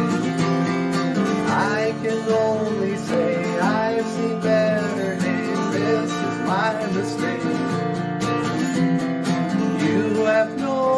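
Instrumental break in a song: strummed acoustic guitar with a lead melody line whose notes glide up and down in pitch.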